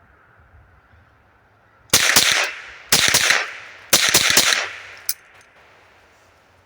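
Savage Model 62 semi-automatic .22 LR rifle being fired rapidly: three quick groups of cracks about a second apart, each with a short ringing tail, then one smaller sharp crack about a second later.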